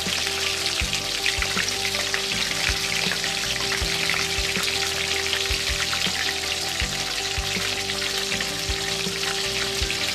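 Chicken pieces deep-frying in a large wok of hot oil, the oil sizzling steadily with a dense, fine crackle.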